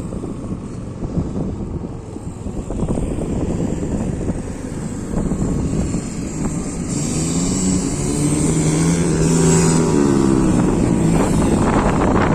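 Wind buffeting the microphone over a running vehicle engine. About two-thirds of the way in, a louder engine drone with several tones swells up, then eases off near the end.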